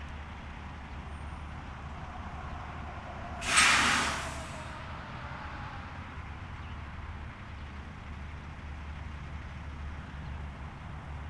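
Steady low road-traffic noise, with a sudden loud hiss about three and a half seconds in that fades within about a second: a truck's air brakes venting.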